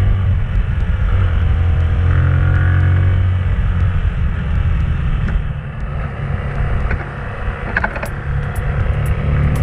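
Bajaj motorcycle engine running while riding, heard from a handlebar-mounted camera. It eases off about halfway through, then picks up again. A few sharp clicks come near the end.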